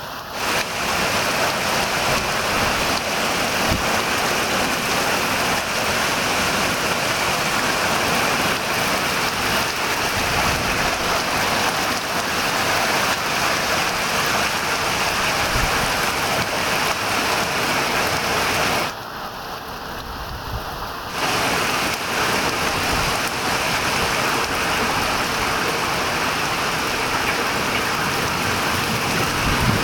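Heavy rain pouring onto a pond and garden in a summer storm: a dense, steady hiss that eases for about two seconds around two-thirds of the way through.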